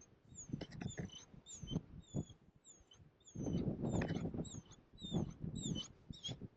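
A small bird chirping over and over, short high squeaky notes about two to three a second. Beneath it is irregular low crunching and rustling, heaviest a little past the middle.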